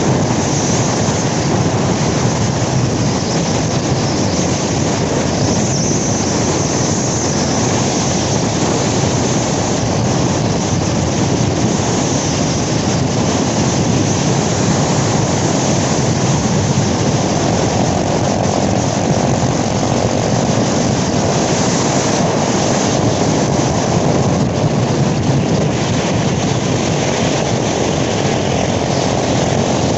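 Yamaha motorcycle ridden at road speed: a steady rush of wind over the microphone mixed with the engine running underneath.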